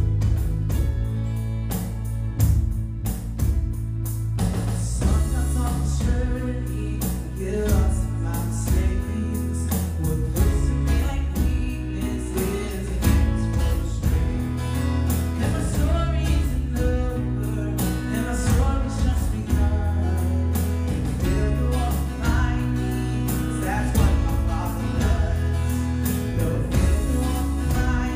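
Worship song: guitar and drums with a steady beat, a voice singing over them from about five seconds in.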